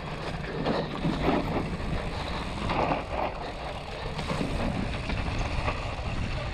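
Yeti SB150 mountain bike rolling down a dry dirt trail, tyres rumbling and crunching over dirt and small rocks, with short clicks and rattles from the bike. Wind rumbles on a helmet-mounted microphone.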